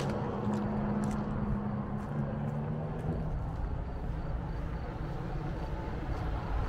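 A motor vehicle's engine humming over a steady low rumble, the hum fading out about three seconds in.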